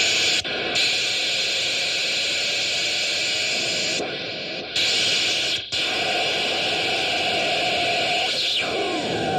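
Experimental sound machine putting out a steady wash of static-like hiss that cuts out briefly a few times. Near the end a sweep falls in pitch and settles into a steady held tone.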